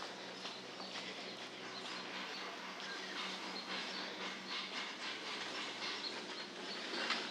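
Outdoor ambience: a steady hiss with a low steady hum under it and faint, irregular light taps scattered through.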